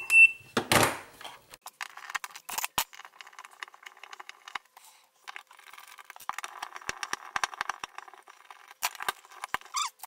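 A short electronic beep right at the start, then scattered clicks, taps and scraping as an old duplex wall outlet is taken apart by hand: cover plate and mounting screws undone and the receptacle pulled out of its plastic wall box.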